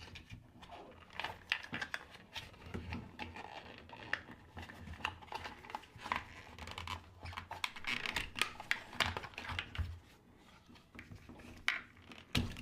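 Irregular small plastic clicks and scrapes from hands handling a washer door latch and its wiring connectors, with a brief pause near the end.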